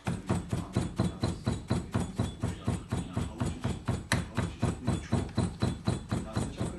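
A carpet weaver's hand beating comb (kirkit) knocking rhythmically, about four strikes a second, packing the freshly tied knots and weft down into the warp of a carpet on a loom.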